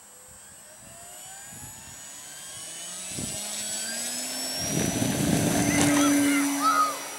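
Electric motor and propeller of a Parkzone F4U-1A Corsair RC warbird throttling up: a whine that rises in pitch and grows steadily louder, then falls off just before the end.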